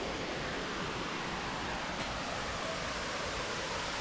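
Steady, even rushing of a waterfall heard at a distance.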